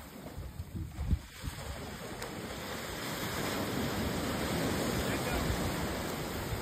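Ocean surf breaking and washing up the shore, swelling louder from about two seconds in, with wind buffeting the microphone in gusts near the start.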